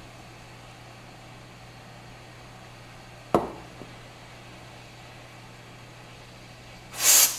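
Steady low hum and hiss of a hot-air rework station's handpiece blowing air at a flight controller board, with a single sharp knock about a third of the way in. Near the end comes a short, loud hiss: a can of compressed air duster sprayed at the board, blowing molten solder out of a bridge between the processor pins.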